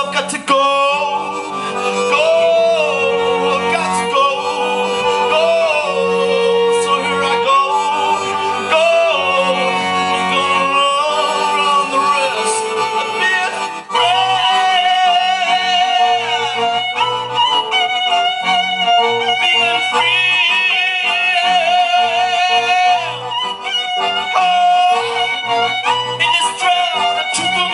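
Live band music with a violin playing a melody of held, wavering notes over a steady low bass line.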